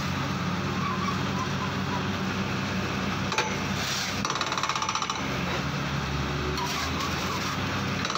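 Borewell drilling rig running steadily as its drill rod turns in the hole, blowing out cuttings. A sharp knock comes a little past three seconds in, followed by about a second of rapid, even rattling.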